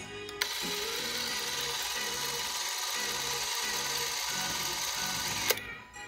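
Nizo 801 Super 8 film camera's motor running steadily for about five seconds, switched on and off with a click at each end, over background music.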